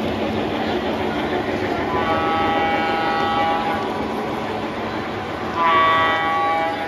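O scale model trains running on the layout track with a steady rolling rumble, while a model locomotive's sound system sounds its horn twice: a long blast about two seconds in and a second, louder blast near the end.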